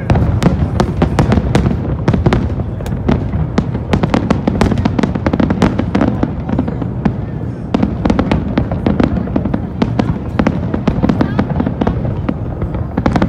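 Aerial fireworks display: a dense, unbroken barrage of rapid pops and crackles from bursting shells over a continuous low rumble of bangs.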